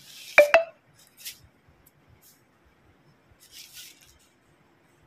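Two sharp, ringing clinks a split second apart, like glass or metal tapped together, about half a second in, followed by a few faint soft rustles.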